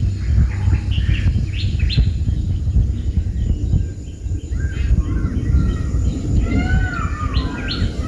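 Small birds chirping and calling in short notes and quick warbling phrases, thinner in the middle and busiest near the end, over a steady low rumble.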